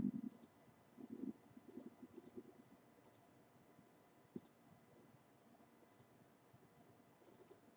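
Faint computer mouse button clicks, about ten short ticks at irregular spacing, some in quick pairs and a run of three near the end, as the pointer steps through a software wizard.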